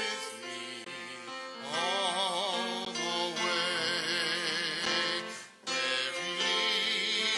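Church music: a voice singing with wide vibrato over sustained instrumental accompaniment. The voice comes in about two seconds in, and there is a brief break between phrases about five and a half seconds in.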